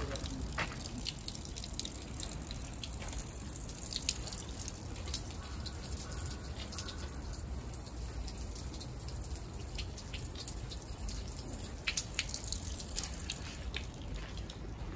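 Running water splashing and dripping into the stone basin of a shrine's hand-washing fountain (temizuya): a steady wash of water with frequent sharp drips.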